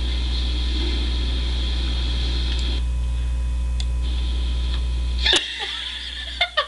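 Sneezing baby panda video playing back: a steady hum, then about five seconds in a single sudden sharp sneeze, after which the hum cuts out and a couple of short sharp sounds follow.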